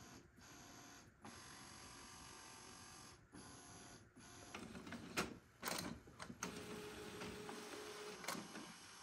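Epson ET-8550 inkjet printer running its start-up initialisation, faint throughout. About halfway there are several clicks and knocks of the mechanism, then a steady motor whine lasting about a second and a half, then another click, as the print head carriage moves across.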